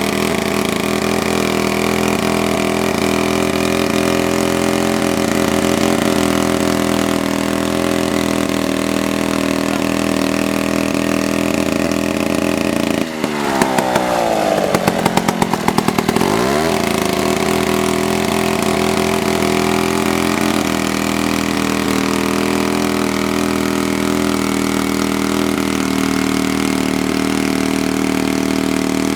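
Engine of a 1940s two-man chainsaw running steadily. About halfway through it suddenly changes speed, its pitch sinking and then climbing back over about three seconds, before settling back to a steady run.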